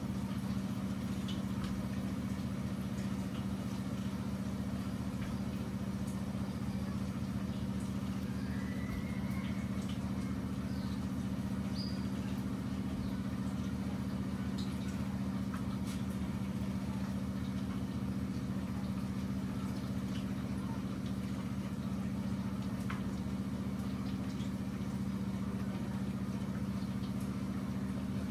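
A steady low hum at an even level, with faint scattered scrapes and ticks from a hand peeler and knife working raw potatoes.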